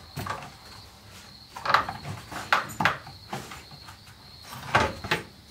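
Irregular short, sharp knocks and clacks, about seven in a few seconds, from interior car parts and tools being handled.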